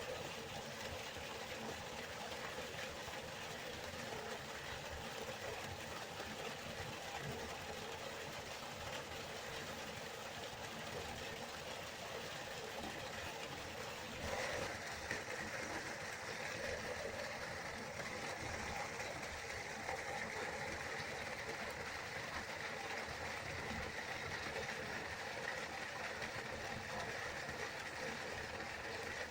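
Waterfall: a steady, continuous rush of falling water. About halfway through the rush turns brighter and slightly louder.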